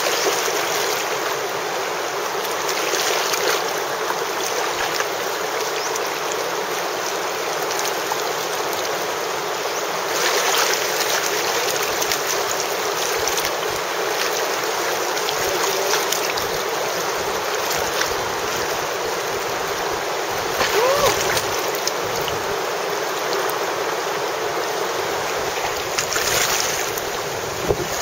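Rushing white-water river rapids: a steady, dense wash of water that swells louder now and then.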